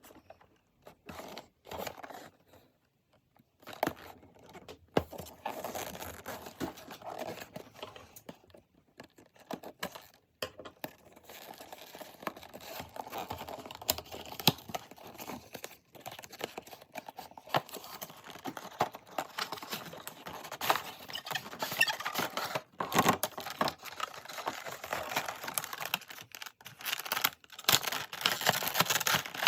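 Toy packaging being opened and handled: tearing, crinkling and irregular clicks and rustles, sparse at first and busier and louder from about halfway on.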